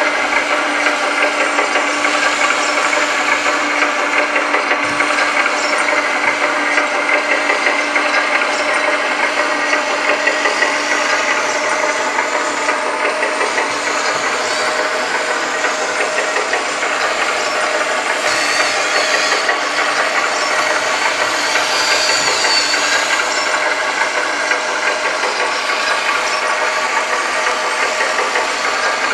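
1/14 Kabolite K350 hydraulic RC excavator running as it is worked: a steady mechanical whine with several tones over a fast, dense rattle, holding even as the arm and upper structure move.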